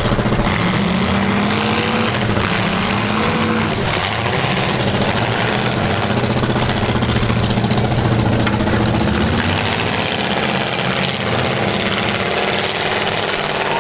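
Demolition derby cars' engines running hard over a loud, steady din, their pitch rising and falling as the drivers work the throttle.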